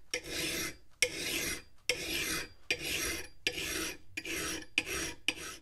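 A fine chainsaw file scraping steel on the edge of a vintage Hults Bruk double-bit axe, putting on the secondary bevel. About eight strokes, a little more than one a second, getting shorter toward the end before stopping.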